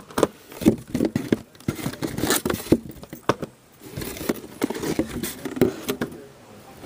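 Cardboard boxes being handled against a cardboard shipping case: irregular scrapes, rustles and knocks as the boxes are slid out and set down.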